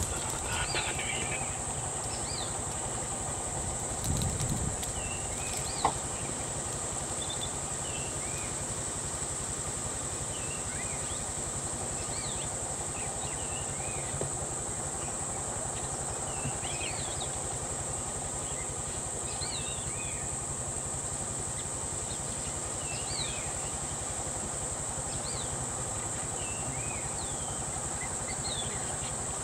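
Steady high-pitched insect drone, typical of cicadas or crickets, with frequent short bird chirps over a low rumble. A single brief knock about six seconds in.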